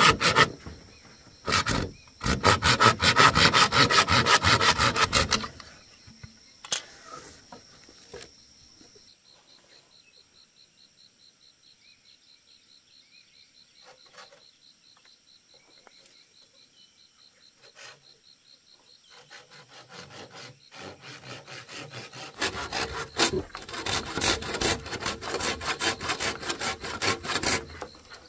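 Toothed hand saw cutting through a green bamboo culm in quick back-and-forth strokes, with a brief pause about two seconds in. The sawing stops after about five seconds, leaving a long quiet stretch with only a faint high steady pulsing, then starts again about six seconds before the end.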